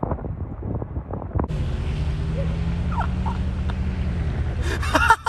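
Vehicle driving on a dirt road: a steady engine drone with tyre and wind noise, starting abruptly about a second and a half in after a few irregular knocks, with a short louder burst near the end.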